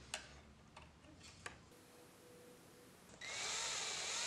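Power drill spinning up about three seconds in and then running steadily, pre-drilling a small pilot hole through a USB hub faceplate into the wooden desk edge. A few faint clicks come before it.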